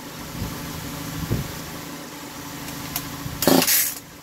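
Echo CS-4500 two-stroke chainsaw being pull-started: the engine turns over unevenly, then the recoil starter rope is yanked twice in quick succession near the end.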